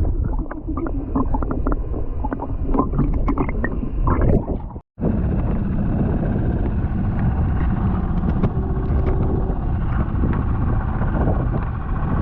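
Water and wind rushing around a small inflatable boat on choppy sea, with scattered knocks and rattles. It cuts out abruptly about five seconds in, then resumes as a steadier, even rush of water.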